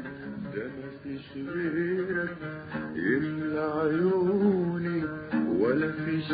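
Arabic song: a plucked-string instrument playing a melodic passage, with a male singing voice and notes that slide up and waver.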